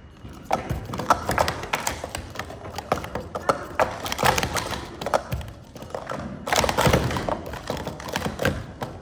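Plastic sport-stacking cups being rapidly stacked and unstacked on a table, a quick clatter of taps and knocks with a short pause about six seconds in.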